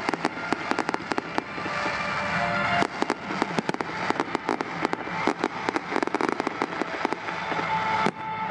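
Fireworks display: aerial shells bursting with dense, rapid crackling and popping, many sharp reports close together, with music playing underneath.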